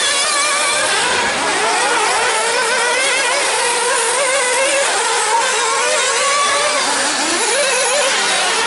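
Several 1/8-scale nitro RC buggy engines running at high revs together. Their overlapping pitches keep rising and falling as the cars accelerate and brake around the track.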